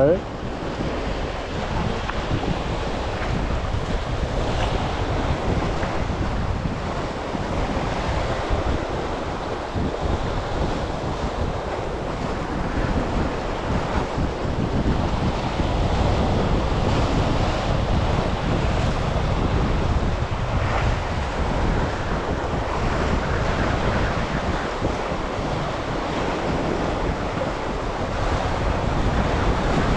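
Wind rumbling on the microphone over the steady wash of sea waves.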